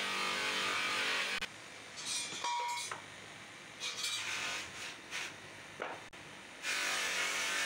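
Polishing motor spinning a cloth buffing wheel against a cast brass horse: a steady motor hum under a rushing hiss from the buff. The sound drops away after about a second and a half, comes back only in short bursts, and returns in full near the end.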